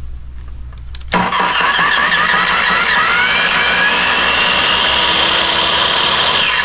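Makita miter saw's motor switched on about a second in, spinning up with a rising whine and then running steadily at full speed with no wood under the blade. It is a no-load test run showing the long-stored saw still runs well, and it begins to wind down at the very end.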